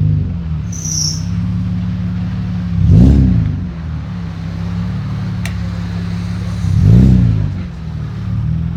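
BMW 5 Series engine with an aftermarket exhaust idling, revved twice in quick blips, about three and seven seconds in, each rising and falling back to idle.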